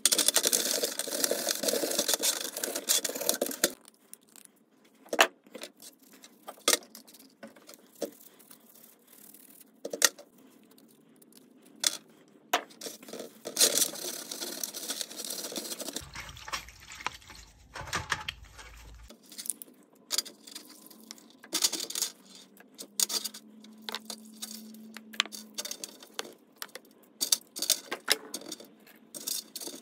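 Steel wool scrubbing small Sachs Huret rear derailleur parts in a metal tray of degreaser for about the first four seconds. After that come scattered sharp clicks and clinks as the small metal parts are handled and knocked against the tray in the liquid.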